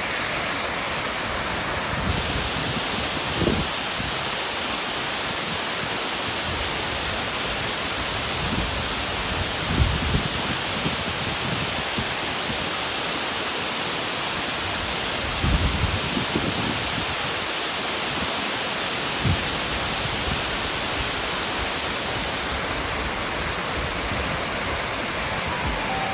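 Waterfall rushing in a steady, even roar of water, with a few brief low rumbles, the longest about 16 seconds in.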